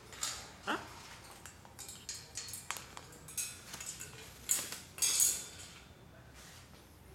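Irregular metallic clinks and rattles of a wire birdcage as a blue-and-gold macaw climbs about on it, loudest in two clatters a little past the middle. A short falling squeak comes about a second in.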